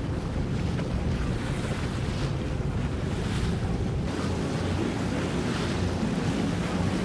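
Wellcraft walkaround boat's engine running steadily as the boat passes through the inlet, a constant low hum under wind buffeting the microphone. Water washes from the hull and wake in recurring brief swishes.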